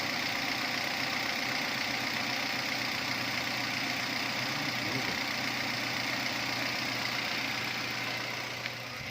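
Toyota Avanza's 3SZ 1.5 L inline-four engine idling steadily, running after its bent connecting rods were replaced to cure a knock.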